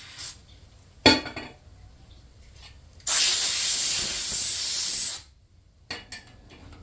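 Aerosol brake cleaner spraying in one steady hiss of about two seconds that cuts off sharply, with a sharp clack about a second before it.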